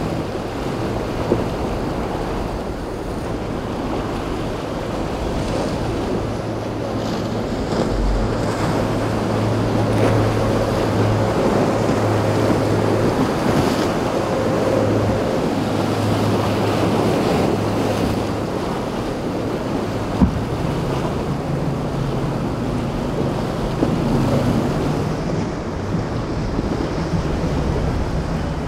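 Rough inlet water and breaking waves, with wind blowing across the microphone and a boat engine droning steadily underneath.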